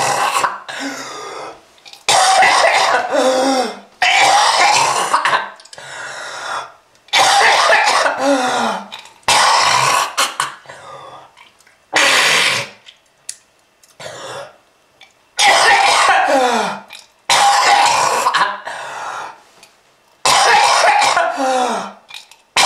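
A person coughing and hacking in repeated fits, about nine bouts of a second or two each with short pauses between. Many bouts end on a falling pitch.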